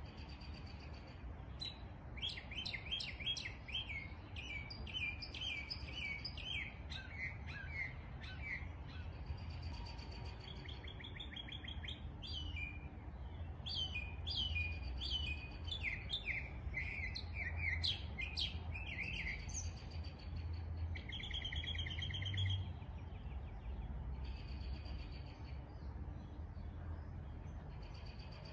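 Small songbirds singing and calling: runs of quick chirps stepping down in pitch, with short buzzy trills now and then, over a low steady rumble.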